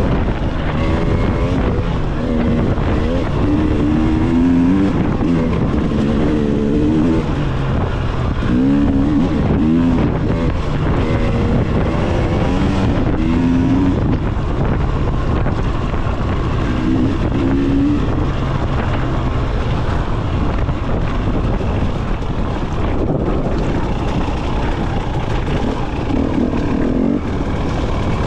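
2019 KTM EXC 300 TPI two-stroke dirt bike engine running under a rider, its revs rising and falling over and over as the throttle is worked, then running steadier for a while before picking up again near the end.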